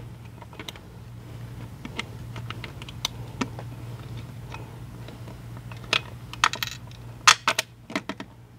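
Small, sharp clicks and taps of mounting bolts, washers and nuts being handled and fitted through an Attwood hydrofoil onto an outboard's cavitation plate. The clicks are scattered, with a denser run of louder ones about six to eight seconds in, over a steady low hum.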